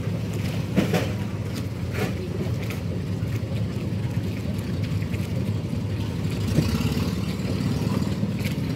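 Engine running steadily at idle, a low even hum, with a few sharp knocks over it, the clearest about a second in and again about two-thirds through.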